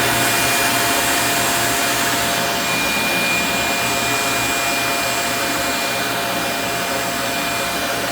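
Vacuum cleaner running steadily with a whining motor, used to suck a blockage out of a clogged drain pipe that a plumbing snake cannot reach.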